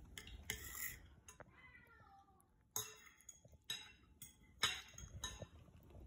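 A cat meows once, falling in pitch, about a second and a half in. Around it come several sharp clicks and clinks of a knife and fork on a plate as a breaded chicken schnitzel is cut open.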